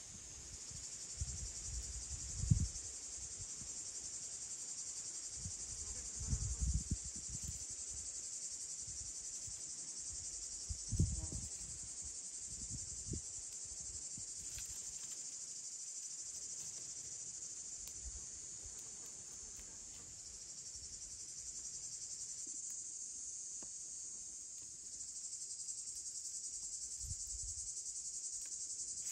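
Steady, high-pitched insect chorus, with a few soft knocks and snaps of dry twigs being stacked in a stone fire ring, mostly in the first half.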